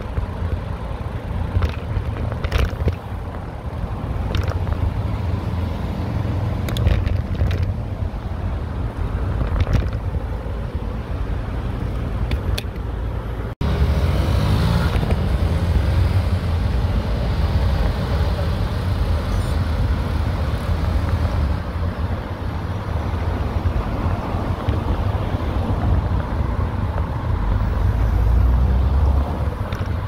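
Steady low rumble of wind on the microphone and road noise from a moving bicycle, with scattered sharp knocks in the first half. The sound drops out for an instant about halfway through, then comes back louder.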